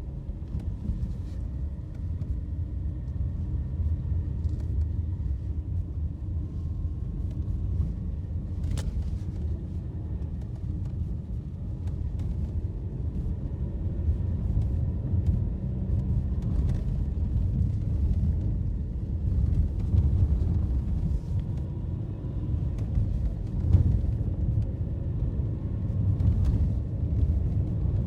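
A car driving: a steady low rumble of road and engine noise, with a sharp click about nine seconds in and a louder knock about twenty-four seconds in.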